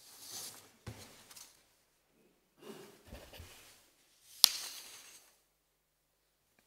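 A group of people sitting down on wooden chairs: rustling cloth and soft knocks, with one sharp knock about four and a half seconds in, then the room falls quiet.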